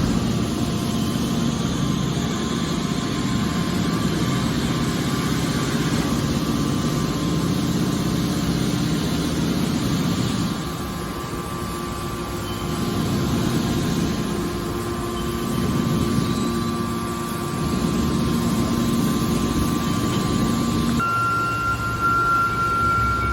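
Heavy machinery running steadily, a motor hum with pump-like noise: a hydraulic car baler in operation. The noise eases for a couple of seconds about halfway through and swells again, and a higher steady tone sets in near the end.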